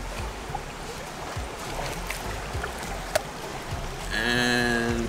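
Steady rush of a river, with a single sharp click about three seconds in. Near the end, a loud steady pitched tone of an unseen source sounds for about a second.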